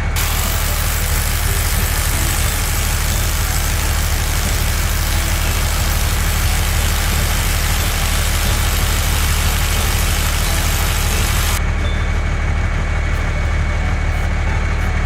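Heavy vehicle engine running steadily with a deep rumble, a hiss over it that drops away about two-thirds of the way through.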